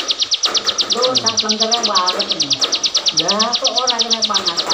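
A caged ciblek (bar-winged prinia) singing nonstop: one fast, even trill of high notes at about eight or nine a second, in full 'gacor' song. People talk over it in the background.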